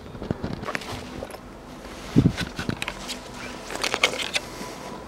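Footsteps and rustling of brambles and dry twigs as someone pushes through undergrowth, with crisp crackling around four seconds in. A dull thump about two seconds in is the loudest sound.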